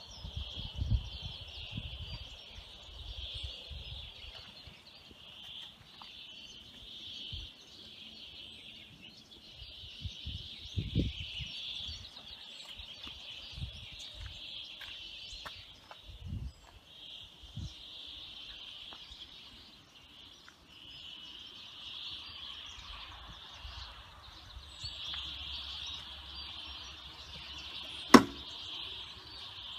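A steady, high chirping chorus of small animals in the background, with irregular low bumps from a hand-held phone being moved and one sharp click near the end.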